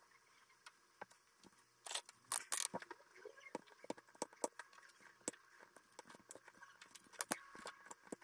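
Pliers clicking and scraping on the nickel strips and cell ends of a Xiaomi m365 scooter battery pack while a cell is worked loose: a run of sharp, irregular clicks with a louder scraping patch about two seconds in.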